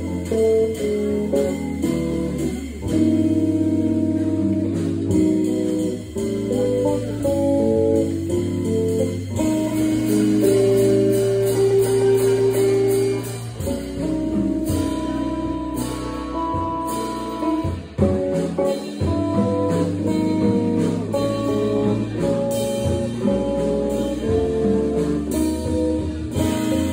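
Jazz trio playing live: guitar, organ and drum kit.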